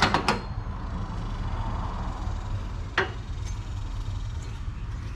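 A few sharp metal clicks from the brackets and bolts being fitted by hand, over a steady low background rumble.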